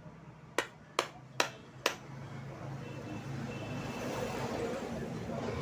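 Four sharp knocks about half a second apart, then a steady wash of vehicle noise that grows louder.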